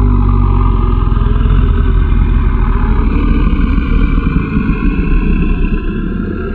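Monster creature sound effect: a long, deep, rattling growl that tails off near the end.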